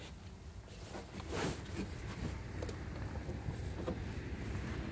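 Low, uneven rumble of wind on the microphone, a little louder from about a second in, with a few faint ticks.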